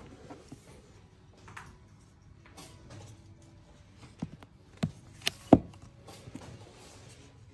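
Magazines being handled on a shop rack: a faint paper rustle, then four sharp knocks and taps in quick succession a little past the middle, the last the loudest.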